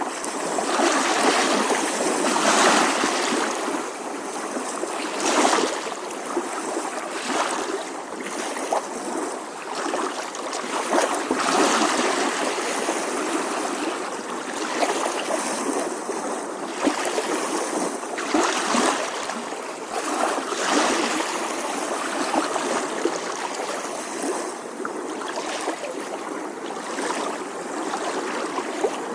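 Small ocean waves lapping on a shore, a steady wash of water with surges every few seconds as each wave breaks and runs up.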